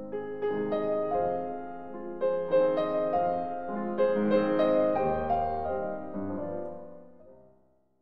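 Instrumental intro theme music: a melody of short notes over sustained lower notes, fading out near the end.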